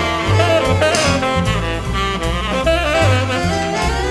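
Background jazz music with a saxophone lead over a stepping bass line and a steady beat.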